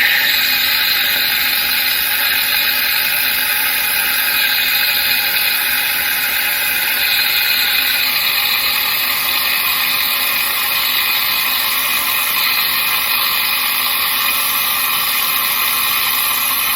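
Gaggia Anima Prestige super-automatic espresso machine running steadily through its cappuccino cycle: a mechanical whir with hiss, which changes in tone about eight seconds in.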